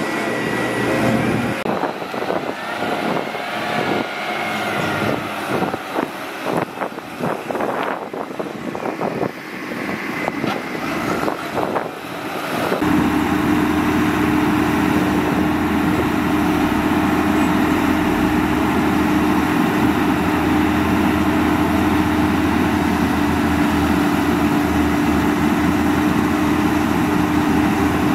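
A DISD SD300N wheel loader's diesel engine working as it pushes sand, uneven, with short knocks and clanks. About thirteen seconds in the sound changes suddenly to a louder, steady drone of heavy diesel machinery with a constant hum, as a dump truck tips sand.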